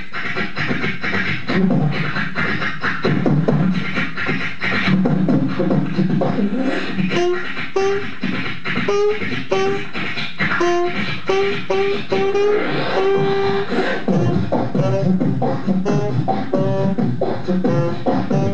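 Beatboxing into a handheld microphone, with a saxophone joining in a melody of short notes about seven seconds in, pausing briefly about fourteen seconds in, then going on.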